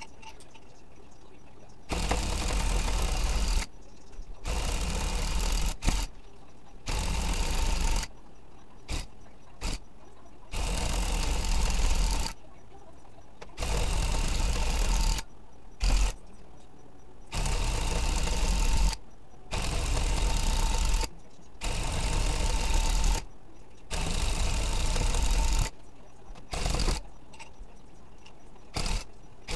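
Handheld electric tufting gun running in short runs of a second or two, starting and stopping about a dozen times as it punches yarn into the backing cloth, with a low buzz under the needle's rattle.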